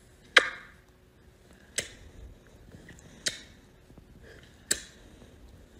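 A person kissing a kitten's head: four short lip-smack kisses about a second and a half apart, the first the loudest.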